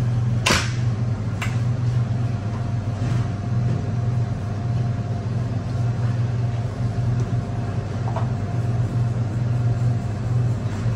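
Steady low mechanical hum of kitchen machinery, with a few short clinks and knocks as containers and ingredients go into a steel mixer bowl; the sharpest knock comes about half a second in.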